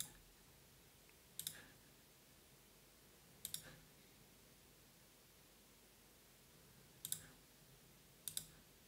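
Computer mouse button clicks, five spread unevenly, each a quick double tick of press and release, placing points with a polyline drawing tool.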